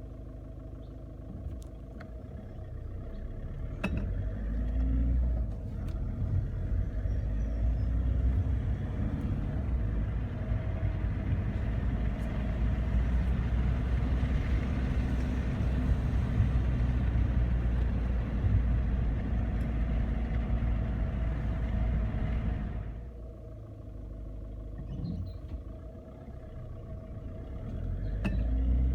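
2011 Volkswagen Polo 6R's TDI diesel engine running on its replaced fuel injectors, without the injector-fault noise: a steady low note at first, then louder and rumbling for about fifteen seconds as it works harder, easing off a little after twenty seconds and building again near the end.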